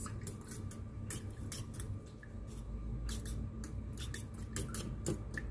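Light, irregular clicks and scrapes of kitchen utensils against a dish during food preparation, several a second.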